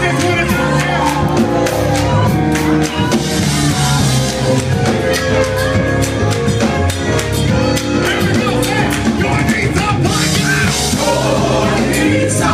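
Live gospel band with a group of singers: several voices singing over organ and keyboards, bass, drums and guitar, with a steady drum beat.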